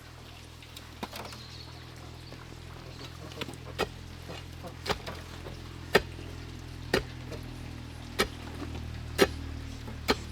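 Sharp knocks of something being struck, about one a second, beginning a few seconds in and growing louder, over a steady low hum.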